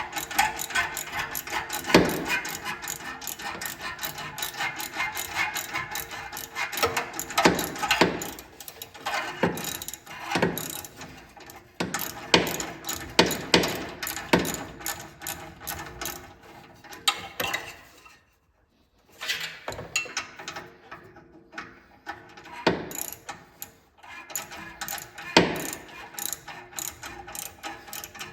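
Ratchet wrench clicking in quick runs as bolts are turned, with a louder knock every few seconds and a short pause about two-thirds of the way in.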